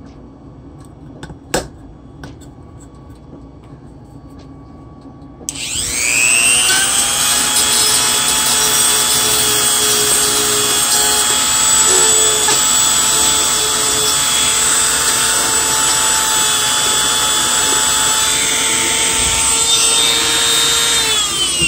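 A sharp click about a second and a half in, then a handheld rotary tool spins up about five seconds in and runs at a steady high speed, sanding down a 3D-printed plastic air scoop; the motor stops near the end.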